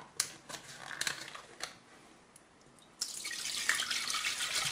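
A few light knocks, then from about three seconds in a steady stream of milk pouring from a carton into a stainless steel saucepan.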